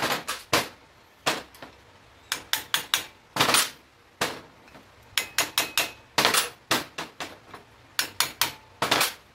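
Hammer striking steel, tapping the lower steering-head bearing race off the steering stem: sharp metallic blows with a ringing tone, coming in quick runs of three or four with short pauses between. This is the slow way of removing the race without a puller.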